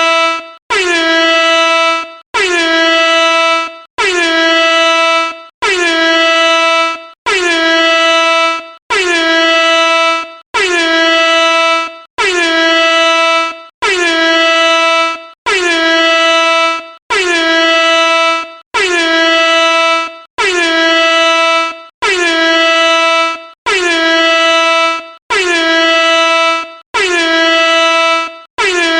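Air horn blasting over and over: about eighteen identical loud blasts, each about a second and a half long with short gaps between. Each blast starts with a brief dip in pitch, then holds one steady, many-toned note.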